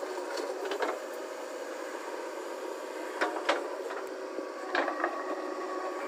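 A steady mechanical hum made of several constant tones, broken by a few short clicks about a second in, around three seconds in and near five seconds.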